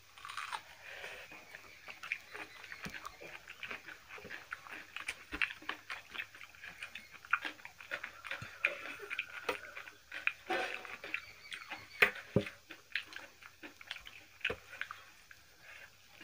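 Close-up chewing and lip-smacking of people eating rice and mutton curry by hand, full of small wet clicks at an uneven pace, with a sharper click about twelve seconds in.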